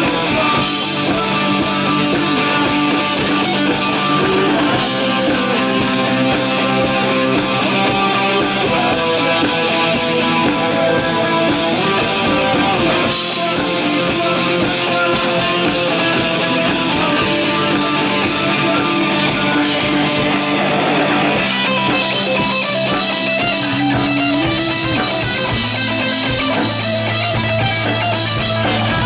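Live rock band playing, electric guitar over drums.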